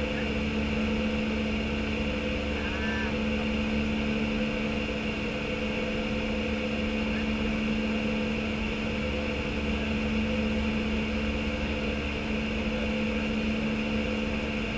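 Steady cabin drone on the flight deck of an Airbus A319 in flight: air rushing past the airframe and the ventilation and avionics fans, with a steady low hum of a few tones under it.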